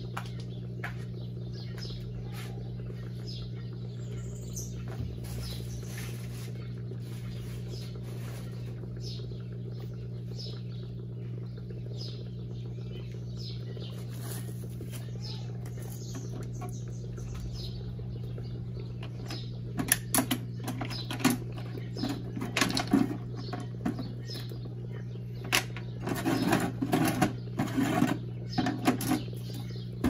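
Brastemp Eggo mini washing machine humming steadily while the load soaks in hot water. From about two-thirds in, an irregular run of clicks and knocks starts up.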